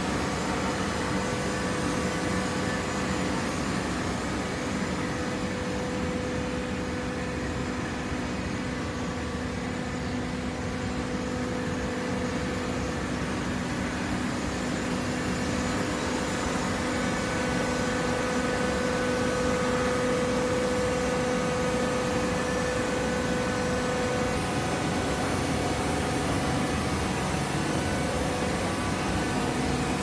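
Horizontal hydraulic baler running, its motor and hydraulic pump giving a steady hum with a whine that grows a little louder about two-thirds of the way through.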